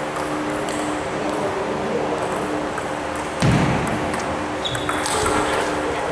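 Table tennis rally: the ball clicking sharply and irregularly off the bats and the table, with one heavy low thump about three and a half seconds in, over a steady hum of background noise.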